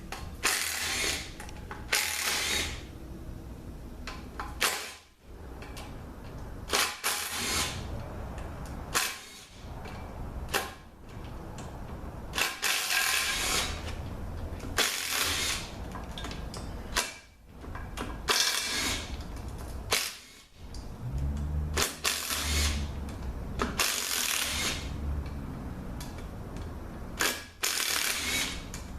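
Air wrench with a Torx socket running out the outer bell-housing bolts of a Mercedes 722.6 automatic transmission, in about a dozen short bursts of half a second to a second each, with a steady low hum between them.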